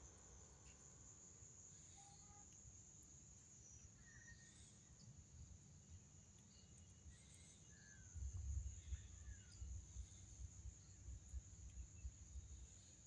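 Faint field ambience: insects trilling steadily at a high pitch, with a few short, falling bird chirps. A low rumble on the microphone comes in about eight seconds in.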